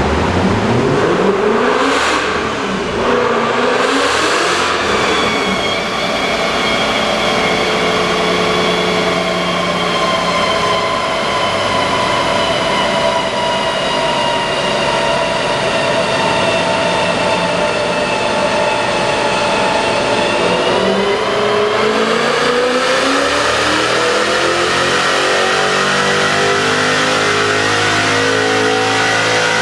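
BMW E39 M5's S62 V8 running on a chassis dynamometer. The engine note rises with two brief breaks in the first few seconds, then holds a near-steady speed with a high whine from the rollers and tyres. From about twenty seconds in it begins a long pull, its pitch climbing steadily.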